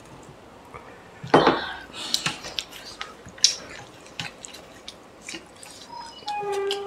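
Wet, close-up eating sounds: fingers squishing curry-soaked rice against steel plates, with chewing and lip smacks, and one loud short knock or clatter about a second and a half in. A brief hummed 'mm' comes near the end.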